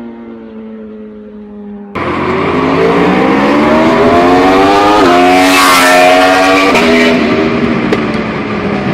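Motorcycle engine winding down. About two seconds in it cuts abruptly to a louder motorcycle accelerating hard, its pitch climbing with quick upshifts, loudest near the middle as it passes close, then easing off.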